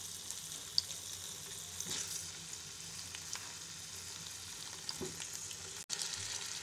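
Raw potato chunks sizzling gently in a few spoonfuls of oil in a non-stick pan, with a few soft clicks as more pieces are set down in the pan.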